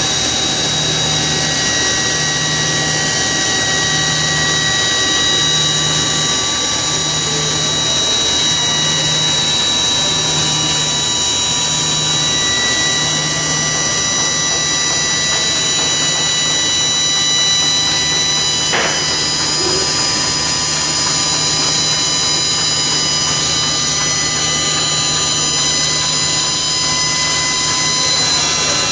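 A motor or power tool running steadily with a constant high whine. A low hum under it pulses about once a second for roughly the first half, then holds steady, and a single sharp click comes about two-thirds of the way through.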